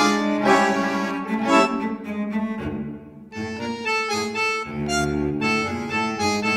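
Instrumental background music with sustained string-like notes and a steady low drone; it dips briefly about halfway through.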